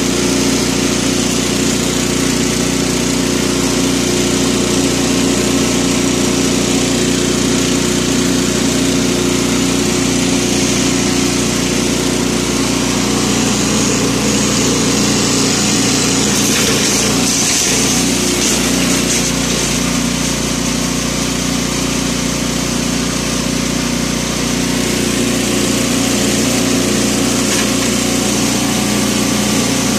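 Modified agarwood wood-grinding machine running steadily with a constant mechanical drone. The sound shifts briefly about halfway through.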